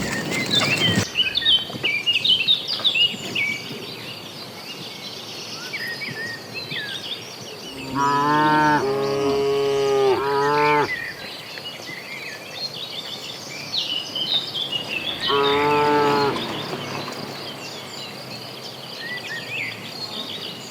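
Cattle mooing: a long low call about eight seconds in that runs into a shorter second one, and another moo around fifteen seconds in. Small birds chirp throughout over a steady high insect drone.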